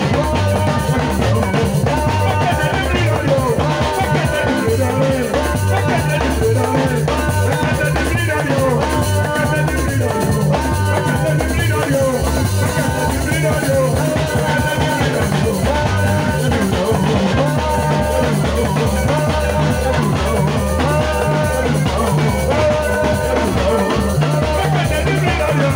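Band music with a drum kit and guitar playing over a steady, repeating bass line, a continuous dance groove.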